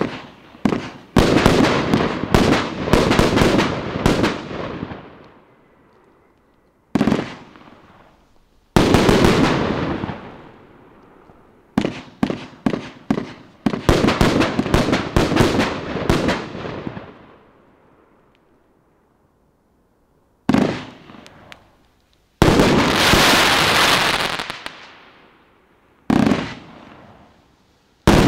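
A 51-shot compound firework cake firing in volleys. Flurries of sharp bangs from shots launching and bursting come in quick succession, each flurry trailing off into crackle. There are short pauses between volleys, the longest a few seconds about two-thirds of the way through, and a dense stretch of crackling toward the end.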